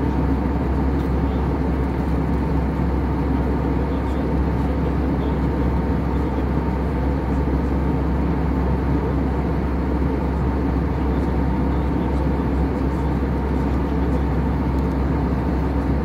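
Steady, deep cabin noise of an airliner in cruise flight: engine and rushing-air drone, even in level with a faint hum in it.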